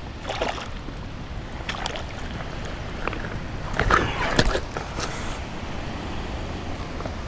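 Short splashes and sloshing in shallow water as a hooked bass is brought to the bank and grabbed by hand. The splashing is strongest about four seconds in.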